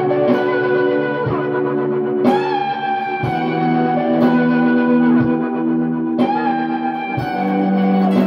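Squier Telecaster electric guitar played clean through Old Blood Noise Endeavors Dark Star and Procession reverb pedals and a Walrus ARP-87 delay. Single picked notes land about once a second. They sustain into a long, layered wash of overlapping tones, with a brighter, fuller strum about every four seconds.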